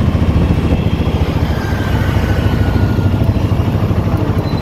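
Auto-rickshaw engine running steadily under way, a loud, rapidly pulsing low rumble heard from inside the open cab, mixed with road and traffic noise.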